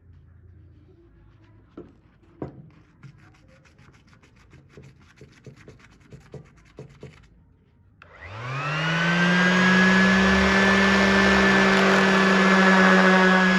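Quiet clicks and taps of handling, then about eight seconds in an electric power tool's motor spins up, its whine rising quickly to a steady pitch and running on loudly with a rushing hiss.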